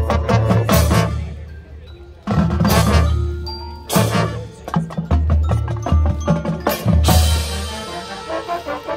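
Marching band playing its show music, led by the percussion: heavy drum hits with cymbal crashes about two, four and seven seconds in, over ringing mallet percussion.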